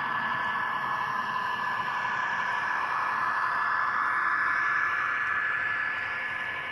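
H0-scale model freight train behind a model ÖBB class 2043 diesel locomotive rolling past on its track: a steady rushing of wheels on the rails with a thin, steady high whine over it. It swells to its loudest about four to five seconds in as the wagons pass closest, then eases off near the end.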